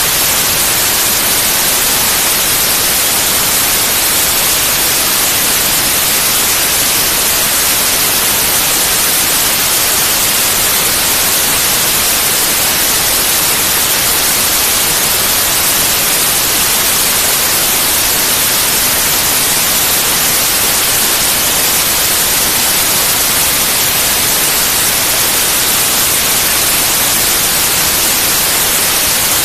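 Steady white noise: an even, unchanging hiss, heaviest in the treble.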